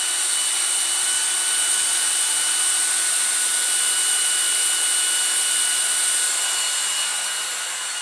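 LG CordZero A9 cordless stick vacuum running in turbo mode: a steady high-pitched motor whine over strong airflow hiss as it is pushed forward over flour and crumbs, easing slightly near the end.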